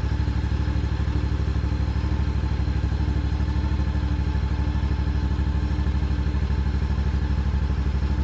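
Hustler Raptor SD zero-turn mower engine running steadily with a fast, even pulse, heard up close from a device mounted on the mower as it is driven.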